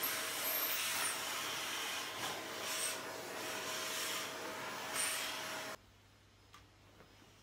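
Vacuum cleaner with hose and metal wand running steadily, a constant whine over its rushing air. It cuts off suddenly about six seconds in, leaving a quiet room with a few faint ticks.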